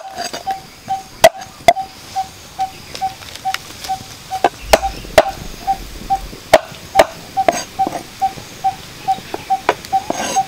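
Heavy cleaver chopping quail on a wooden chopping block: irregular sharp chops. Behind them a steady short peep repeats two or three times a second.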